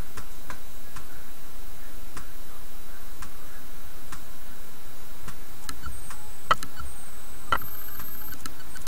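Light clicks about once a second over a steady hiss, with two louder clicks about six and a half and seven and a half seconds in.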